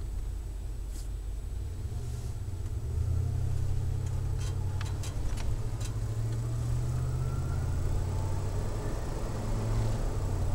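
A Ford van's 351 Windsor V8 exhaust through a Flowmaster Delta Flow 50 series single-inlet, dual-outlet muffler, heard from inside the cabin as a steady low drone that gets louder about three seconds in. A few sharp clicks or rattles come in the middle.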